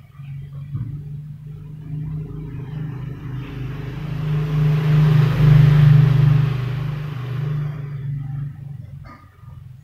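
A motor vehicle passing by: a low engine hum and road noise that grow louder to a peak about halfway through, then fade away near the end.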